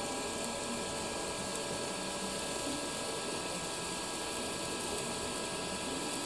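TIG welding arc from a Furius Flex 121 inverter welder in lift-arc mode, burning on stainless steel plate: a steady, even hiss with several faint steady tones through it.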